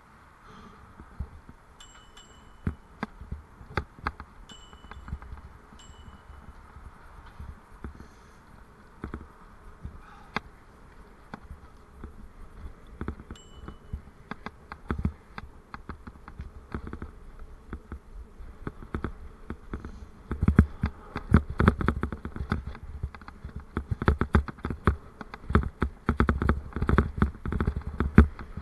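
A bicycle ridden over an uneven path, heard through a bike-mounted camera: a steady hum with rapid rattles and knocks, busier and louder in the last third.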